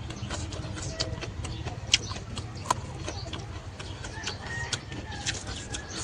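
Close-up eating sounds: a person chewing smoked beef, with irregular wet mouth clicks and smacks. A faint bird call sounds in the background in the second half.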